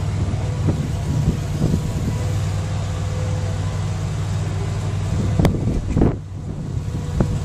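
Bobcat 742B skid steer loader running steadily as its loader arms are raised, an engine hum with a faint steady whine over it. The level dips briefly about six seconds in.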